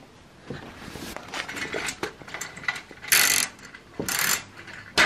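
Curtain being drawn open, sliding along its track: a run of small clicks and rattles, then two louder swishes about three and four seconds in.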